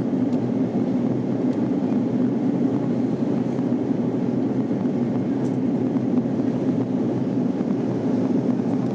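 Steady cabin noise of an Airbus A340 airliner in descent: an even, low rush of airflow and engines, with no change or single event standing out.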